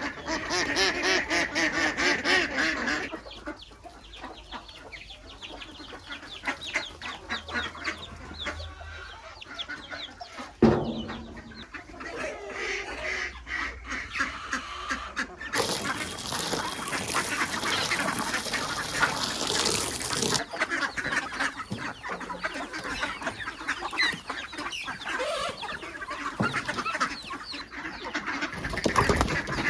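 Farmyard ducks quacking and chickens clucking, with a dense run of rapid quacking in the first three seconds and scattered calls after. A single sharp knock comes about ten seconds in, and a steady hiss lasts about five seconds past the middle.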